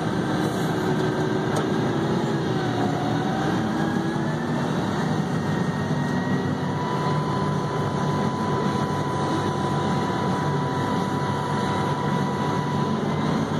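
Haul truck's diesel engine running, heard from inside the cab, its pitch dipping and rising again a couple of seconds in. A steady whine joins about seven seconds in and stops near the end.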